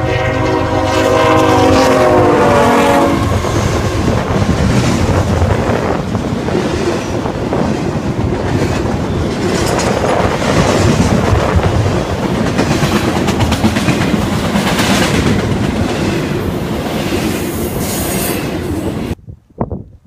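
Union Pacific GE AC45CCTE diesel locomotive's air horn sounding a steady chord, its pitch dropping as the locomotive goes by about three seconds in. The locomotives and the double-stack container cars then rumble past close by, the wheels clacking rhythmically over the rail joints. The sound cuts off abruptly near the end.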